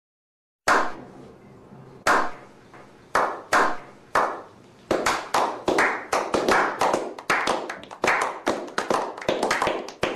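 A small group clapping by hand. A few slow, separate claps ring out briefly at first, then from about five seconds in the clapping quickens and thickens into steady applause.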